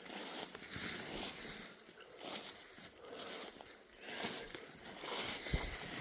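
Footsteps crunching and rustling through dense, thorny brush, with uneven crackles of twigs and leaves.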